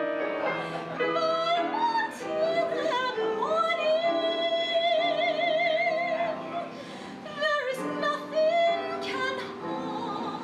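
A woman singing a slow ballad with vibrato, holding one long note in the middle, over piano accompaniment on a Yamaha keyboard.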